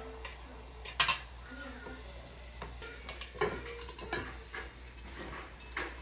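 A piece of Spanish mackerel frying in oil in a pan, with a faint steady sizzle. A sharp knock about a second in is the loudest sound, and smaller knocks follow as the pan's lid is put on.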